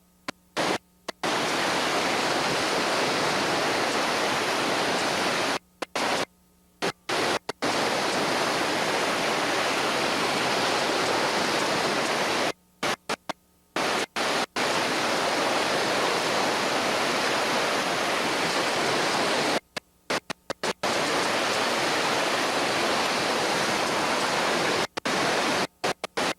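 Steady rush of whitewater in river rapids. It cuts out abruptly to near silence for a second or two about five times.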